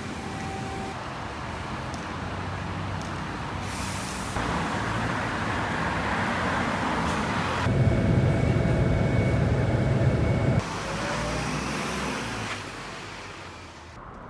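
City road traffic: a steady rumble of passing vehicles that changes abruptly several times, heaviest and loudest in the middle.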